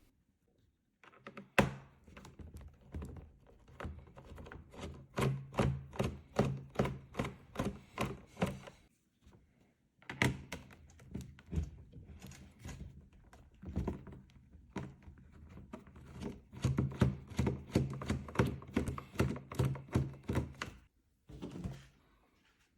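A 5.5 mm nut driver working the rear case screws of an IBM Model M keyboard: a long run of quick clicks and knocks, about three a second, with two short pauses.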